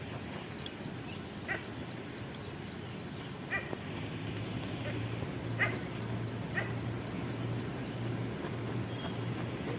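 An animal calling four times in short, sharp calls over steady background noise, with a low hum setting in about halfway.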